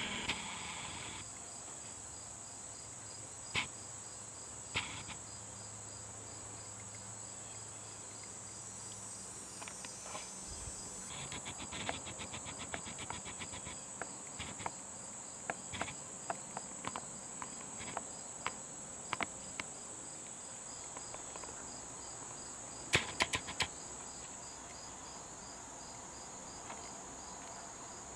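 Insects trilling steadily in the background, a continuous high trill with a regular pulsing chirp beneath it. Scattered light clicks and knocks come and go, with a quick cluster of louder clicks near the end.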